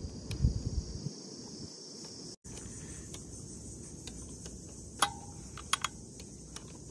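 Crickets chirring steadily, a high even buzz, louder in the first couple of seconds. A few sharp clicks start about five seconds in, from hands working the metal brake-hose fitting on the caliper.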